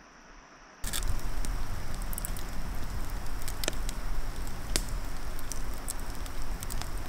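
Wood fire crackling in a stone fire ring, with sharp pops scattered through a steady hiss and low rumble. It starts abruptly about a second in, after a quiet stretch.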